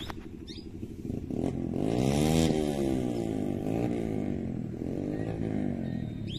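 A motor vehicle's engine passing by, growing louder to its loudest about two seconds in and then slowly fading.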